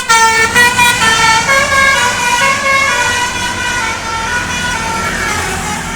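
Bus telolet horn of the Basuri type playing a melody of stepping notes. It is loud at first and fades out gradually over the last few seconds.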